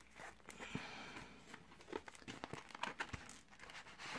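Packaging rustling and crinkling softly as a RAM kit's retail box is opened, followed by a few light clicks and taps.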